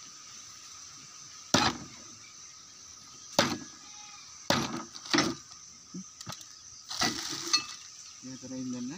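A large knife chopping through chicken pieces on a wooden board: about six sharp chops, irregularly spaced a second or more apart.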